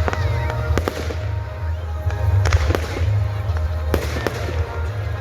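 Fireworks going off: a series of sharp bangs and crackles, often less than a second apart, with music playing underneath.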